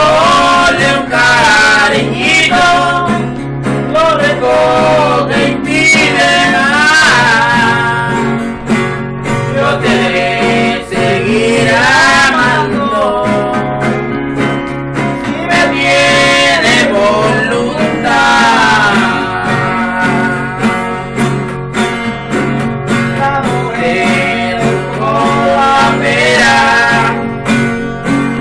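Acoustic guitar strummed as accompaniment to a man singing a song with long, wavering held notes.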